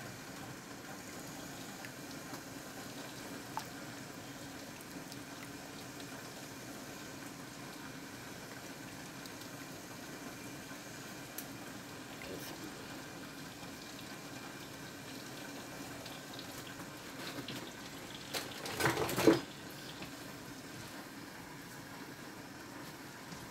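A large pot of water at a steady boil with pierogies cooking in it, as they are scooped out with a metal spaghetti spoon. A short burst of knocks and splashing near the end.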